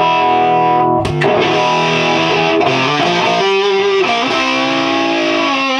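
Gibson Les Paul with P90 pickups played loud through a hand-built Hiwatt DR103 clone 100-watt valve head and a four-speaker Eminence Tonkerlite cabinet, pushed by a Rangemaster-style germanium treble booster: overdriven, crunchy sustained chords and single notes, with held notes wavering in vibrato near the end.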